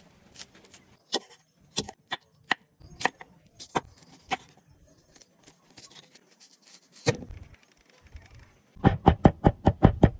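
Knife cutting on a wooden cutting board: single sharp cuts spaced well under a second apart, then near the end a fast, even run of chopping, about six strokes a second, as garlic is minced.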